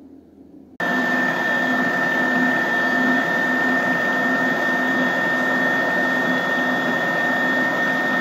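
Electric stand mixer running at speed with a balloon whisk, whipping cream in a steel bowl: a steady motor whine with a constant high tone, starting suddenly about a second in.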